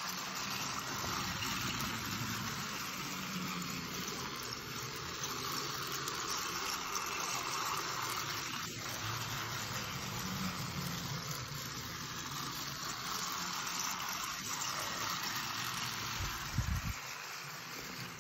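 Small toy train set running around its track, a steady motor whir and wheel rumble. A click about halfway through and a low thump near the end.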